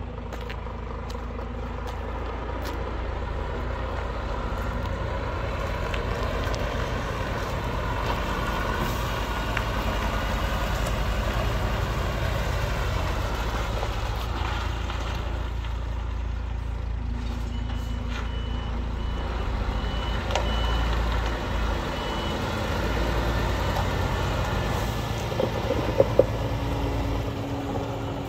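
Scania S500 tractor unit's 13-litre straight-six diesel running steadily with a low drone as the truck manoeuvres at low speed. Past the middle, a reversing alarm beeps for a few seconds, and a few sharp clicks come near the end.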